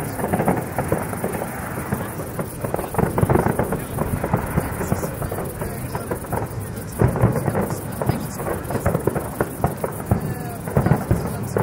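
Aerial fireworks shells bursting in rapid succession: a dense run of booms with crackling between them, the heaviest bangs about three, seven and eleven seconds in. Music plays underneath.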